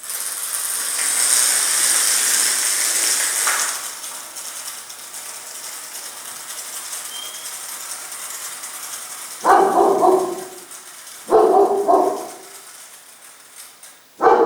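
A pet dog barking in short bouts in the second half: one bark, then a double bark, and another near the end. Before that a high hiss runs for the first few seconds and fades.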